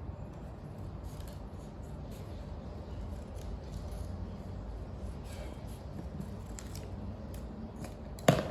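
Scissors snipping through paper in short cuts over a low steady hum, with one sharp knock near the end.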